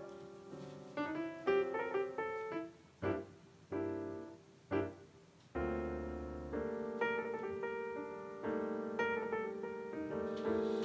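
Piano music playing a tune of separate notes over low bass notes.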